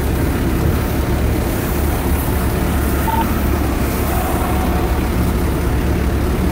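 Fire truck engine running steadily, a constant low rumble. A brief faint beep comes about three seconds in.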